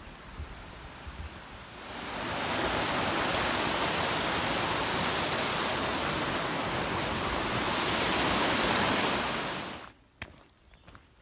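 A rocky forest stream rushing under a footbridge: a steady, loud rush of water that comes in about two seconds in and cuts off suddenly near the end. After it, faint footsteps on a dirt trail.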